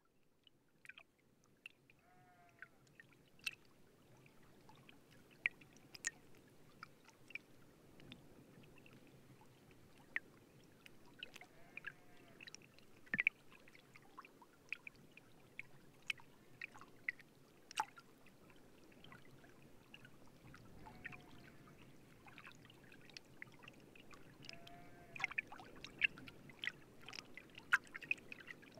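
Wind-blown grass stems picked up through contact microphones: a soft low rumble with scattered sharp ticks and crackles and a few brief squeaky chirps as the stems rub and knock. It fades in at the start and grows slightly louder toward the end.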